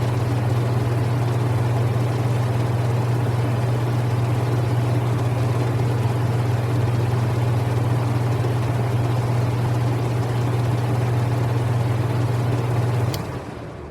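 Air conditioner running with a steady low hum over the rush of its fan. About 13 seconds in there is a click, the hum cuts off, and the sound starts to fade as the unit shuts down.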